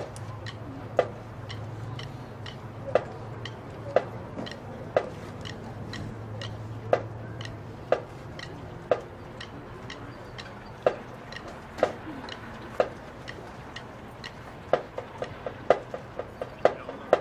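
Sharp percussion clicks keeping a steady beat, about one a second in groups of three with a skipped fourth beat, typical of a drumline's marching tick. Near the end the clicks come quicker and closer together.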